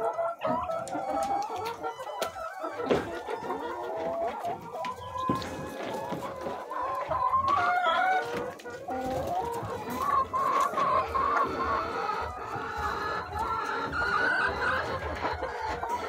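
A flock of brown laying hens clucking, many short overlapping calls from the birds in the cage.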